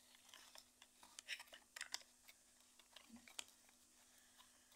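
Faint handling noise: a scatter of small clicks and taps through the first three and a half seconds, over a faint low steady hum.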